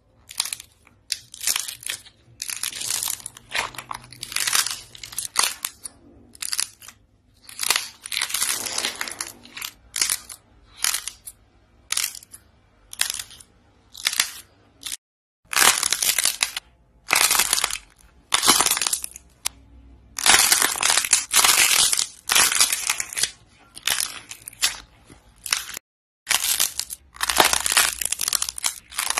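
The dried, painted outer shell on soft clay fruit models crackles and crunches as hands squeeze them, so the coating cracks and flakes off. It comes in repeated bursts of a second or so with short pauses between squeezes.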